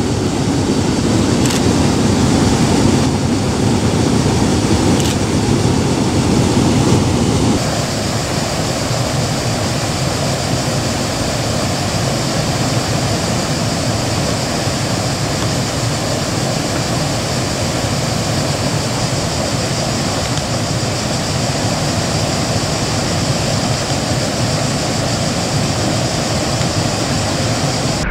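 Steady, loud rushing noise with no distinct events, like wind or distant traffic heard outdoors; its character changes abruptly about seven and a half seconds in.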